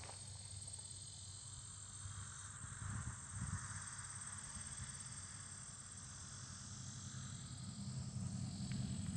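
A steady, high-pitched chorus of insects in late-summer vegetation, over an uneven low rumble that swells near the end.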